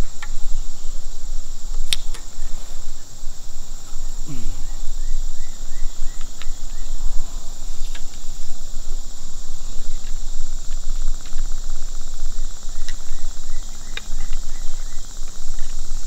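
Steady high-pitched insect chorus, with a few sharp clicks from the crossbow as it is cocked with a rope cocker.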